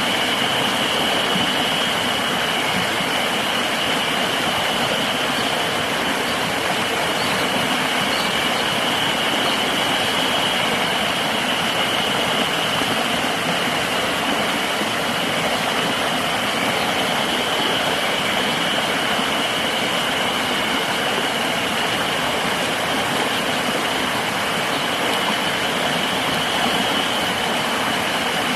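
Steady rushing of river water, with a continuous high-pitched insect drone running over it.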